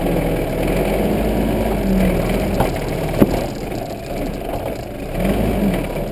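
Engine of a 4x4 off-road vehicle running under load, its pitch rising and falling as it climbs and drives over rough ground. Two sharp knocks come close together about three seconds in, the second the louder.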